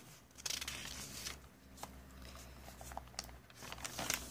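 A paper page of a decomposition-book sketchbook being turned by hand: a soft paper rustle about half a second in, then light scattered handling clicks as the page settles.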